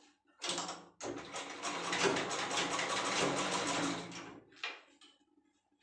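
Black domestic straight-stitch sewing machine stitching a fabric bag pocket: a short burst of needle clatter, then a fast, even mechanical clatter for about three and a half seconds, stopping with one more brief burst.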